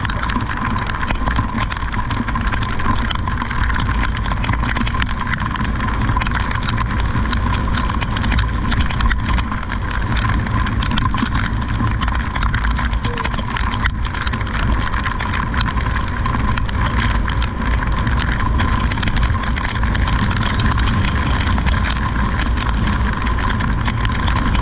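Steady motor vehicle engine and traffic noise, with a constant thin whine over a low rumble.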